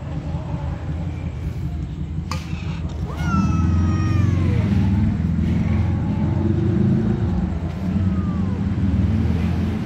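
Cat meowing: one clear falling meow about three seconds in and a fainter falling meow near the end, over a loud, steady low rumble, with a sharp click just before the first meow.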